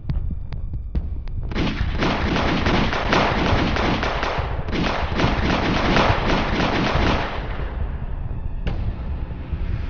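Gunfire sound effects: a few single shots, then two long bursts of rapid automatic fire and another burst starting near the end, over a steady low rumble.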